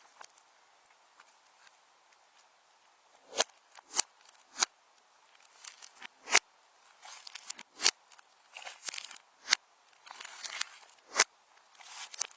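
Slime being squeezed and stretched by hand, giving irregular sharp pops as air pockets burst, with bursts of crackling in between.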